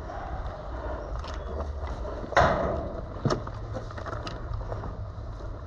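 Two sharp knocks about a second apart, the first the louder, over a steady low rumble of movement and wind noise.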